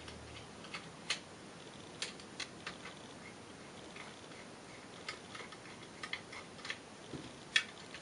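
Faint, irregular ticks and clicks of the long pistol-grip screw being unscrewed from the bottom of an AK rifle's grip, with a few louder clicks near the end.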